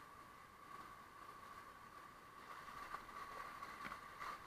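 Near silence: faint ambience of a kayak drifting on calm river water, with a thin steady high tone and a few faint light taps in the second half.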